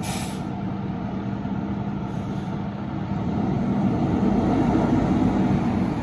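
Quint fire truck's engine running with a steady low rumble, getting louder from about three seconds in. A brief hiss sounds right at the start.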